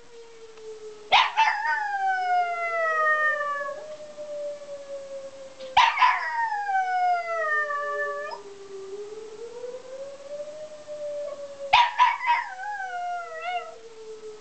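A dog howls three times at a tornado warning siren, which wails steadily underneath, slowly rising and falling in pitch. Each howl starts sharply, is louder than the siren and slides down in pitch over two to three seconds; the last one wavers near its end.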